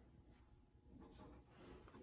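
Near silence: room tone, with a couple of faint soft rustles as a small paper card is handled, about a second in and again near the end.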